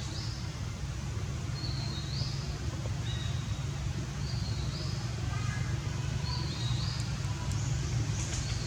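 A bird calls again and again, short high notes that step up in pitch, one call every second or two, over a steady low rumble.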